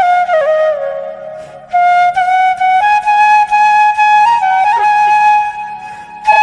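Background music: a solo flute playing a melody with sliding, bending notes, with a brief break about a second and a half in.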